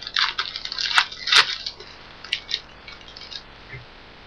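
Trading card pack wrapper crinkling and tearing as a pack is opened, a dense crackle for the first second and a half that thins to a few scattered crackles and ticks.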